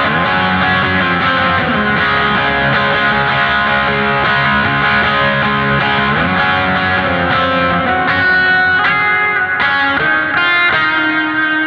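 Electric guitar with distortion played through a NUX MG-30 multi-effects unit: sustained lead notes with slow bends, then sharper picked notes later on.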